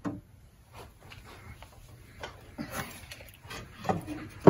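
Faint, scattered clicks and light taps of a steel ruler and combination square being handled against a wooden cabinet top, with one sharper knock near the end.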